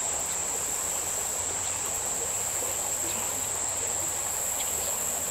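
A steady, high-pitched buzzing insect chorus, with a faint wash of stream water beneath it.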